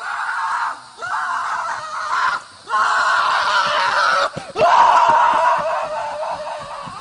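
A series of long, loud screams, about four in a row with short breaks between them, the last one the loudest and trailing off.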